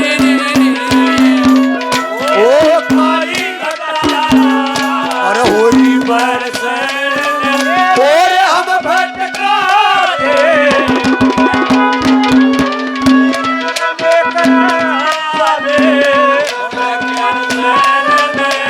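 Instrumental interlude of live Haryanvi ragni folk music: a steady drone under a winding melody, driven by fast hand-drum beats and rattling percussion.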